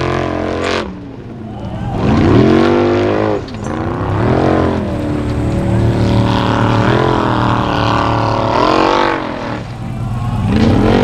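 Formula Offroad buggy engines revving hard and at full throttle during steep gravel hill climbs. The pitch surges up and falls back about five times.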